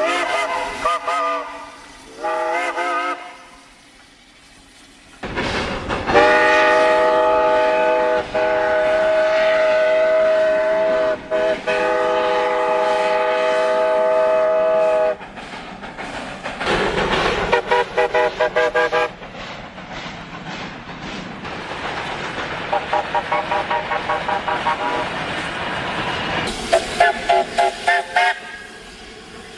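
Steam whistle blasts, one after another: two short toots that bend in pitch at the start, then one long steady blast of several tones sounding together lasting about nine seconds, followed by runs of quick repeated toots.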